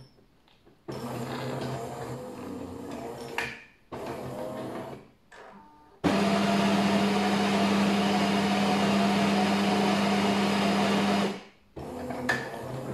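Jura E6 automatic espresso machine working through its double-espresso cycle: a quieter stretch of motor noise, then, about six seconds in, a loud steady mechanical run with a hum that lasts about five seconds and cuts off abruptly.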